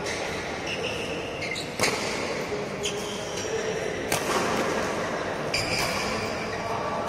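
Doubles badminton rally: rackets striking the shuttlecock in several sharp hits about a second or so apart, with short high squeaks of shoes on the court floor between them.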